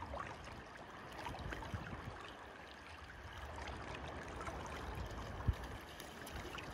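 Faint steady rush of river water, with a brief low thump about five and a half seconds in.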